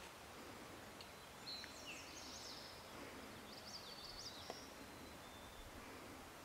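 A songbird singing two short phrases of quick, high, chirping notes, about a second and a half in and again near the middle, over faint outdoor hiss.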